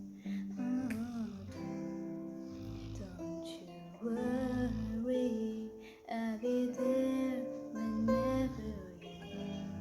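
A person singing untrained over acoustic guitar music. Underneath, a dog snores low, with a rumble about every three seconds.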